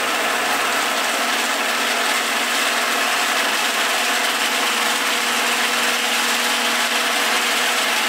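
Genie Professional automatic garage door opener running, its motor and drive moving a sectional garage door along its tracks with a steady mechanical hum.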